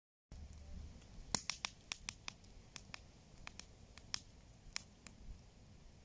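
Campfire crackling: irregular sharp snaps and pops from burning wood, a dozen or more in a few seconds.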